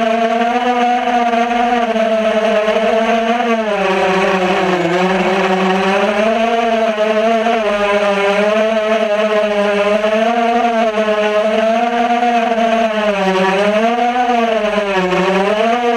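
A 250-size racing quadcopter's electric motors and propellers whine steadily, heard from the camera mounted on the quad. The pitch rises and falls with the throttle, dipping deeper about four seconds in and again around thirteen to fifteen seconds in.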